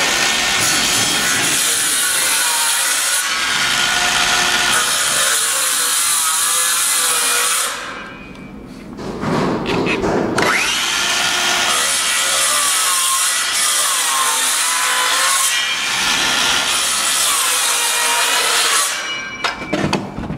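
Cordless circular saw cutting through the OSB skin of a structural insulated panel, in two long cuts. The saw stops briefly about eight seconds in, then spins up again with a rising whine for the second cut. It stops shortly before the end.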